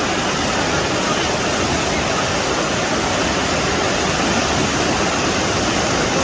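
Fast-flowing flash-flood water rushing steadily and loudly, with no break or change.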